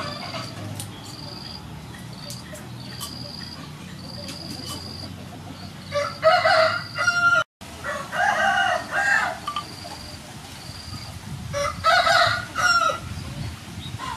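A rooster crowing three times, each crow about a second and a half long, with insects trilling steadily in the background.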